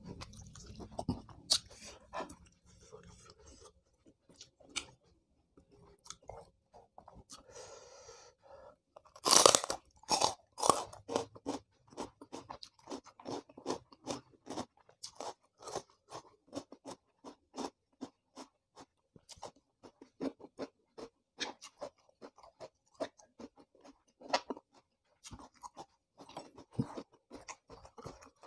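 Close-up chewing of crunchy raw vegetables, raw bitter melon among them. A burst of loud crunching bites comes about nine to eleven seconds in, followed by steady rhythmic chewing.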